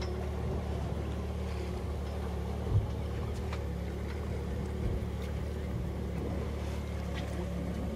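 Fishing boat's engine running at a steady pace, heard on board, with water and wind noise over it. A single short thump a little under three seconds in.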